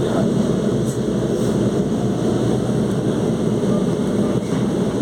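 CPTM Série 2070 electric train running: a steady, dense low rumble of its motors and running gear.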